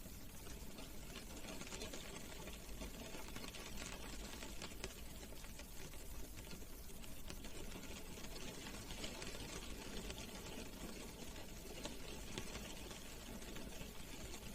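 Rain drumming on a car, heard from inside the cabin: a steady hiss of rain thick with quick taps of single drops.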